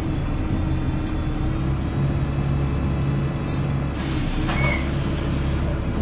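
Alexander Dennis Enviro 300 single-deck bus engine running, heard from inside the saloon, with a steady whine over the engine note (the 'hoovering' sound). Short hisses of air come about three and a half seconds in and again between about four and five seconds.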